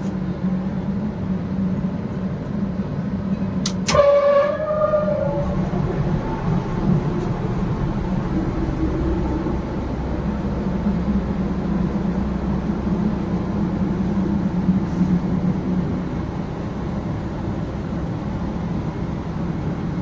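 IDEC evaporative cooling unit's belt-driven supply fan running steadily with a low hum, switched on in manual mode. About four seconds in there are two sharp clicks and then a short pitched tone that falls slightly, like a horn.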